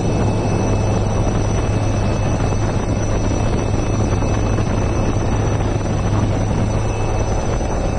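Helicopter noise heard from inside the cabin at the open door of an ALH Dhruv helicopter. It is a steady loud drone of rotor and engine, with a thin high whine above it.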